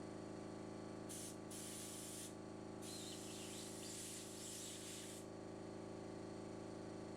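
Short hissing bursts of aerosol carburetor cleaner sprayed on a small Briggs & Stratton engine carburetor that is gummed up with old fuel: two brief squirts about a second in, then a longer spray of about two seconds. A steady low hum runs underneath.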